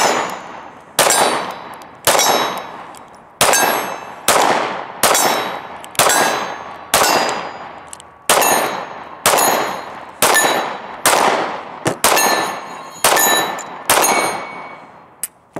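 HK VP9 9mm pistol fired in a steady string of about fifteen shots, roughly one a second, each shot trailing off in a ringing echo.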